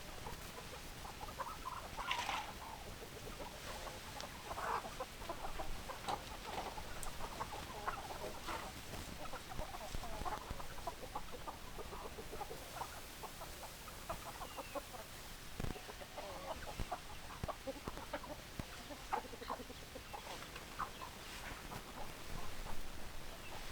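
Chickens clucking: a flock of hens giving short, repeated clucks on and off.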